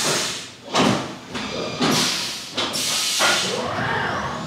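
Haas UMC 750 SS five-axis CNC mill starting its next cycle: four short hissing bursts, then the trunnion table tilting with a whine that rises and falls in pitch near the end.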